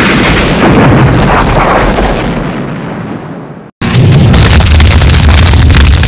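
Cartoon explosion sound effect: a loud blast that fades away over about three and a half seconds, followed by a steady roar of flames that stops abruptly.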